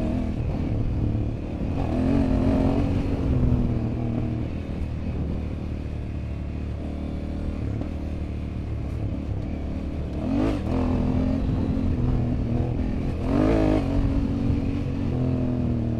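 Honda Africa Twin 1100's parallel-twin engine running steadily under way off-road, with the revs rising on the throttle about two seconds in and twice more near the end.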